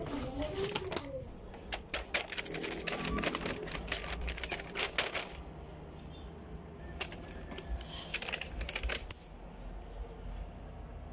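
Brown kraft paper bag crinkling and rustling as hands open it. It comes in dense runs of crackles for the first five seconds or so and again from about seven to nine seconds in.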